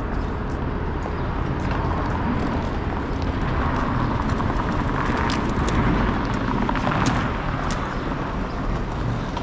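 City street ambience: a steady hum of traffic, with a car passing that swells about four to seven seconds in, and a few scattered light clicks.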